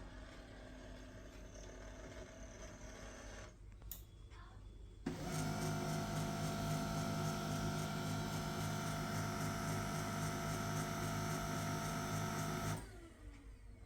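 HP LaserJet M1136 MFP printer's mechanism running during power-on initialisation. A click about four seconds in, then a loud, steady motor whir with several held tones starts suddenly about a second later and cuts off near the end.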